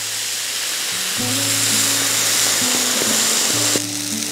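Loud, steady sizzling hiss from a wok of fried fish as boiling water goes in over the hot oil, easing a little near the end. Background music plays underneath.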